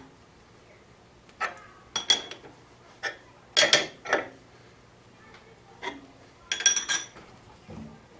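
Steel open-end wrench clinking against the hex nut and steel hold-down clamp of a mill setup: a string of sharp metallic clinks, some in quick pairs, each with a short ring.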